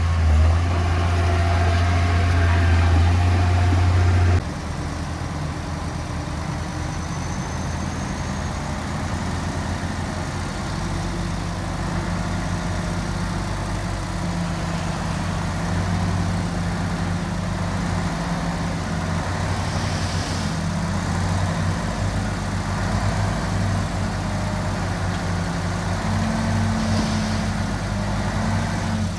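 Heavy diesel engine of construction machinery running steadily, its note shifting abruptly about four seconds in and rising slightly near the end.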